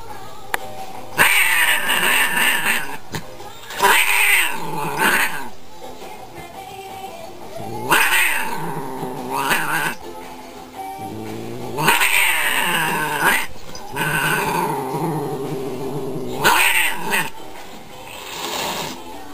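Cats caterwauling in a standoff: loud, drawn-out yowls with hissy edges come again and again, about every four seconds. Background music runs underneath.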